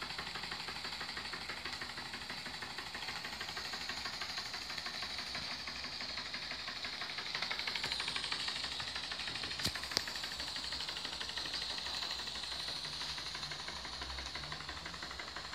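Bengs-Modellbau Danni #3 stationary model steam engine running steadily with a fast, even beat. Two sharp clicks come about ten seconds in.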